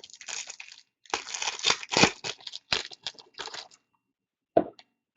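Trading-card pack wrapper being torn open and crinkled, in two stretches of crackling, then a single short tap near the end.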